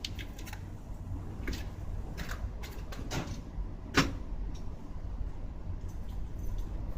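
Nissan Otti H91W engine bay with the engine running: a steady low rumble with irregular sharp clicks and knocks, the loudest about four seconds in. This is the abnormal noise being checked in the engine bay.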